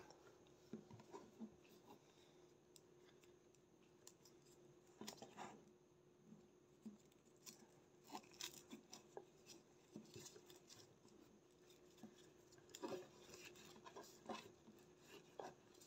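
Faint, scattered rustling and scratching of three-strand rope being worked by hand, its strands tucked through the lay to finish an eye splice, with a few sharper scrapes here and there.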